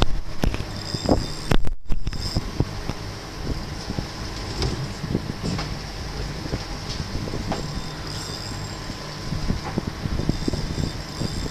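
A boat's engine running with a steady low hum, with wind noise and scattered knocks and clicks from handling on deck while a spinning rod is held bent on a hooked fish. The sound cuts out completely for a moment just before two seconds in.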